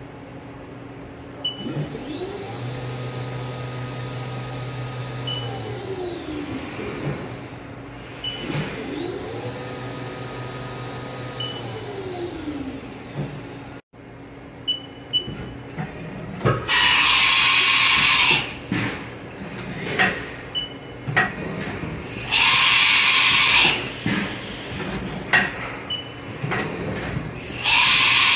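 Haas VF-OE CNC vertical machining center running. First its axis drives move the table, giving two smooth whines that rise, hold and fall. Then the carousel tool changer cycles, with three loud bursts of hiss and sharp clunks between them.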